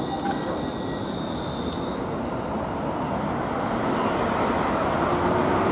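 Road traffic at a busy junction, cars driving through, getting louder in the second half as a car passes close. In the first two seconds a high steady whine from the departing tram fades out.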